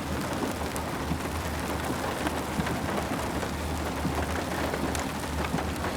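Rain falling steadily, with many scattered sharp drop hits over an even hiss and a low steady rumble underneath.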